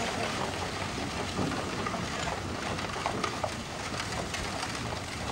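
Horse-drawn carriage rolling away over a dirt road: a steady gritty noise with scattered small clicks from the wheels and hooves.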